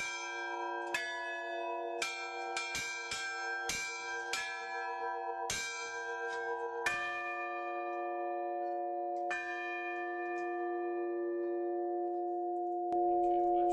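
Several church bells rung by hand with ropes, struck in quick succession at about two strokes a second. The strokes then thin out to two single strikes, and the bells ring on and fade between them.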